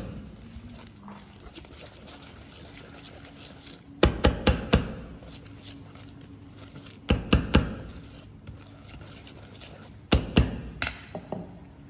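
Wire whisk clinking against a stainless steel mixing bowl in three short bursts of a few quick strikes each, while egg whites are worked into a stiff chocolate batter. Between the bursts the stirring is quiet.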